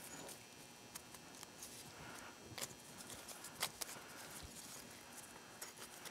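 Faint scratching and small sharp clicks of a piston ring being spread and worked off an aluminium ATV piston by gloved hands, with two louder ticks in the middle.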